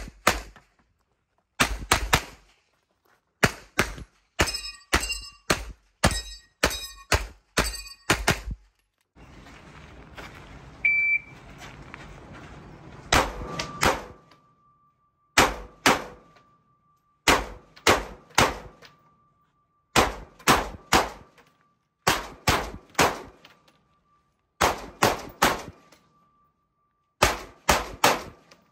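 Rapid gunfire in quick pairs and triples: pistol shots for the first eight seconds or so, a few seconds of handling noise with one brief ring, then an AR-style scoped rifle fired in groups of two and three, a group about every second and a half.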